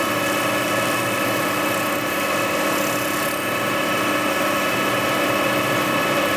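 Wood lathe running at steady speed, a constant hum of several even tones, while sandpaper is held by hand against the spinning wooden captive ring, adding a light steady hiss.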